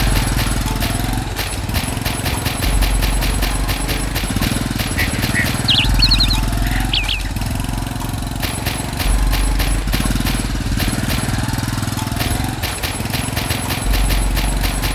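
Background music with a fast, steady beat over a bass line that changes note every few seconds, with a few short high chirps near the middle.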